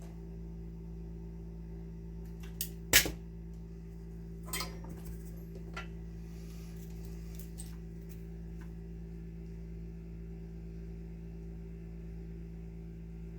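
Small metal clicks and taps from tools and wiring parts being handled while terminals are connected, the loudest about three seconds in and a cluster a second and a half later, over a steady low hum.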